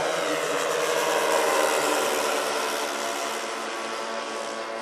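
The engines and propellers of a four-engine, 1/10-scale radio-controlled Super Constellation model in flight make a steady droning of several tones. It swells to its loudest about a second and a half in, then fades slowly as the model passes.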